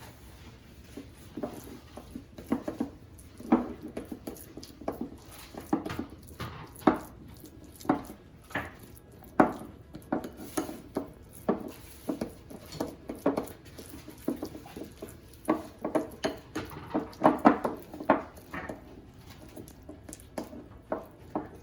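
Utensils clinking and scraping against dishes and a bowl: irregular light knocks, a few each second, as the cream cheese is handled.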